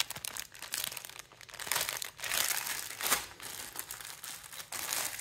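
Clear plastic bags of diamond painting kits crinkling as they are handled, an irregular run of rustles and crackles.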